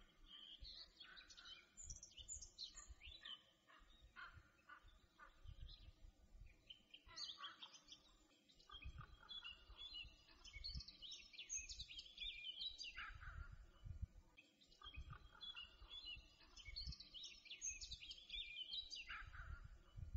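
Faint songbirds chirping and singing in a varied series of short notes. Intermittent low rumbles sit underneath.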